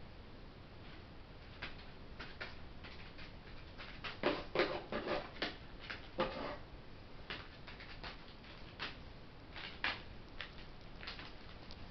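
Juvenile herring gull moving about on a plastic tarp: scattered light taps and rustles from its feet, busiest between about four and six and a half seconds in.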